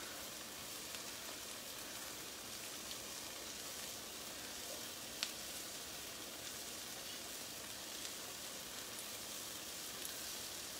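Turkey bacon sizzling steadily on a hot stovetop griddle, with one short light tap about five seconds in.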